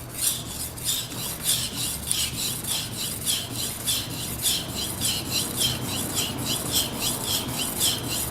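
Carbon-steel knife blade being pushed and drawn across a whetstone at about three strokes a second, a rhythmic wet scraping. The edge is being ground down at a steep angle to remove a chip.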